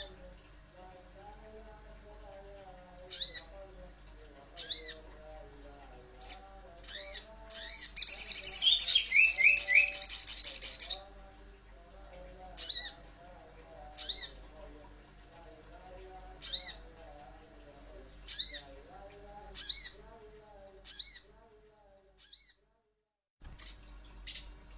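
Recorded calls of a sogon bird played as a lure: short, sharp high calls repeated every second or two, with a loud, rapid chattering trill lasting about three seconds about a third of the way in. A fainter, lower warbling runs underneath, and the sound drops out briefly near the end.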